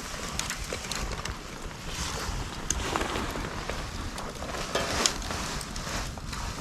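Burning bundle of split dry bamboo crackling, with irregular sharp pops, over a low rumble of wind on the microphone.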